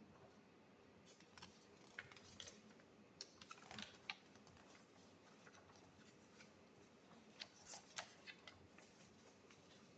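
Faint, scattered clicks and taps in two clusters, from about a second in and again around seven to eight seconds in, over low room hiss.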